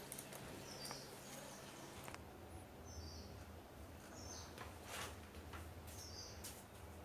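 Faint short bird chirps, several times over a few seconds, over a low steady hum, with a couple of faint clicks.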